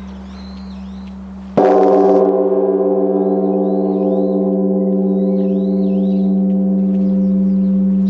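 Large bronze Korean Buddhist temple bell (beomjong) struck once with its wooden log striker about a second and a half in: a loud boom, then a long deep ringing hum with several overtones and a slow waver, over the hum still lingering from the stroke before. Small birds chirp faintly in the background.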